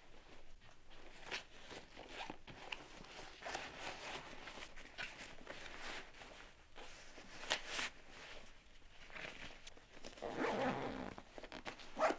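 Clothes being stuffed into a nylon backpack: a run of fabric rustles and brushing as things are pushed in. Near the end comes a louder stretch that fits the backpack being zipped shut.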